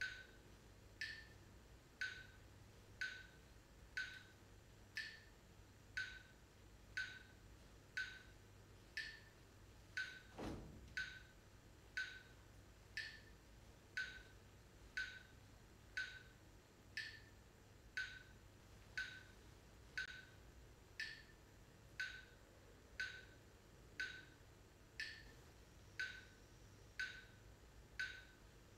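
Steady, regular ticking, one sharp tick about every second, like a clock. About ten seconds in a brief tone slides quickly downward.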